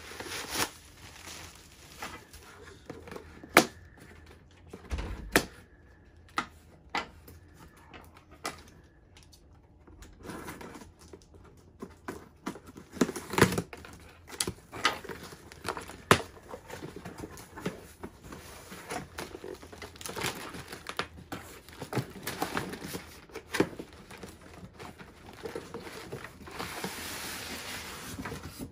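Packaging being handled by hand: plastic wrap crinkling, tape and straps being worked and torn, and a cardboard carton being opened, with many sharp clicks and knocks. Near the end a longer scraping noise as the carton is drawn off its foam packing block.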